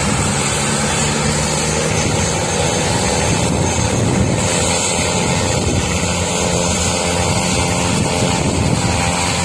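Turboprop aircraft engine and propeller running at a steady drone, with a low hum of several even tones under a constant hiss.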